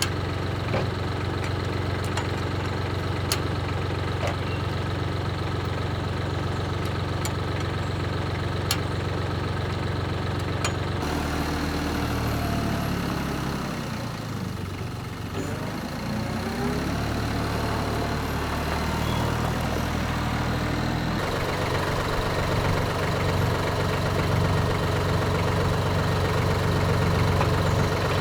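An engine running steadily near idle, changing abruptly twice, with a stretch partway through where its pitch rises and falls.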